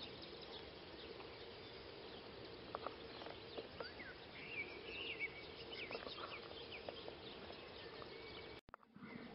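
Faint outdoor ambience of a pasture: small birds chirping on and off over a steady hiss and a faint low hum, with a few soft crunches from a horse cropping grass. The sound drops out briefly near the end.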